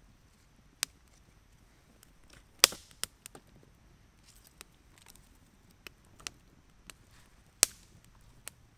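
Small campfire of dry twigs crackling, with scattered sharp pops: the loudest a little under three seconds in and another near the end, when sparks fly up from the fire.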